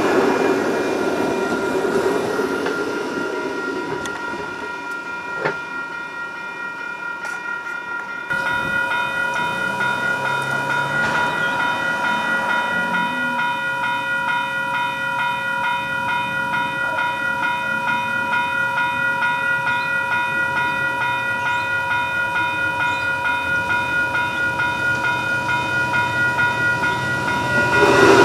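Railway level crossing warning bells ringing in a fast, even pulse. In the last second the rumble of an Adelaide Metro electric train rises as it reaches the crossing.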